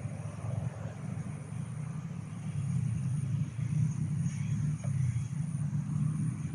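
A steady low rumble that grows a little louder about three seconds in, with a faint steady high-pitched tone above it.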